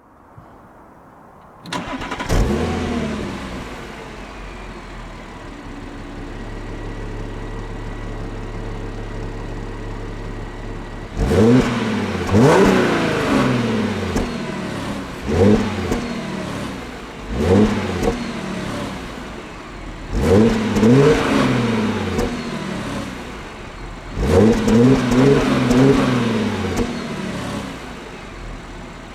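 Stock 2010 Audi A7 Sportback 3.0 TFSI supercharged V6 started up through its factory exhaust, catching with a short rev flare about two seconds in and settling to a steady idle. From about eleven seconds on it is revved about five times in quick blips, each rising and falling back to idle.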